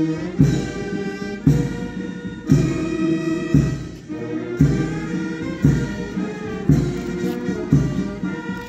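Brass band playing a march, with a strong accent about once a second.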